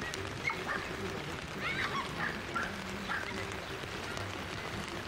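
A dog yipping and barking in short, high calls several times, the loudest a little under two seconds in, over steady background noise.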